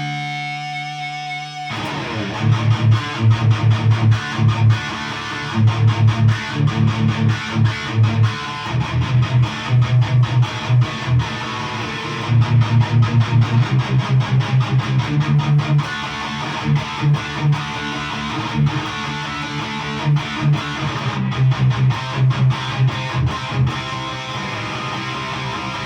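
Distorted electric guitar played through a Mesa/Boogie Mark V tube amp on its high-gain channel 3, gain almost full up. A held chord rings for the first couple of seconds, then short, rhythmic low riffs start and stop. The repaired amp is working properly: it sounds great.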